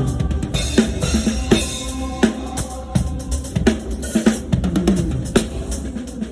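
Live drum kit playing a groove with kick drum, snare and cymbals, over a low bass from the band.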